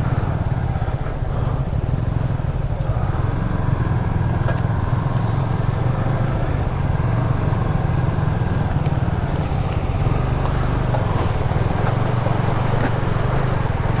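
Motorcycle engine running as the bike rides through waterfall runoff flowing across the road, with the steady rush of water throughout.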